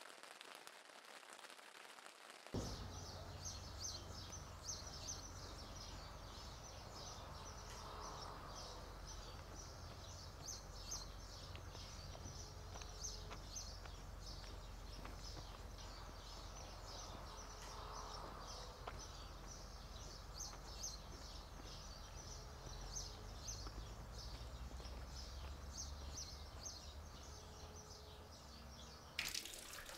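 Rural outdoor ambience: many small birds chirping continuously over a low, steady rumble, coming in about two and a half seconds in after a quieter hiss. A short low tone recurs every five seconds or so.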